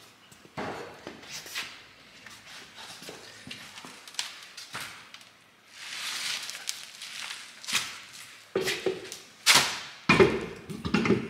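Scattered knocks, clicks and scrapes of an alloy wheel and tyre being handled and fitted over the wheel studs of a rear drum-brake hub. The loudest sharp knocks come a little before the end, as the wheel meets the hub, followed by rough scraping as it is pushed on.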